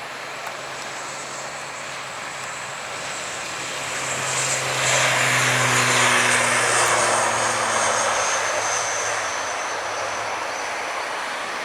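Airliner engines passing close by. The noise swells over about four seconds and peaks near the middle with a high whine and a low hum, then fades slowly as the pitch drops.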